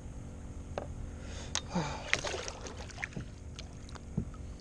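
Scattered knocks and bumps on a kayak while a large fish is grabbed and landed, with a brief scuffle of handling noise near the middle.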